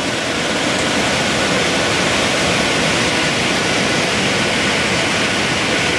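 Heller 1809EXL air-convection reflow oven running, its blowers giving a loud, steady rush of air.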